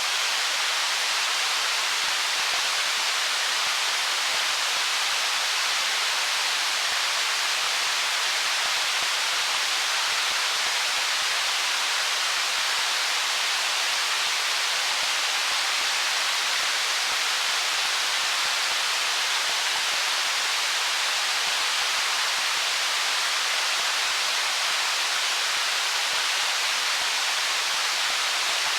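Stream water rushing over stones: a steady, even hiss-like rush with no single splash or gurgle standing out.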